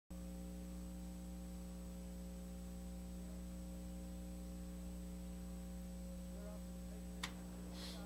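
Steady electrical mains hum with a faint high whine, with nothing else in it but a single click about seven seconds in.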